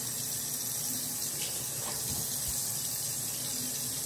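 Bathroom sink faucet running in a steady stream into the basin.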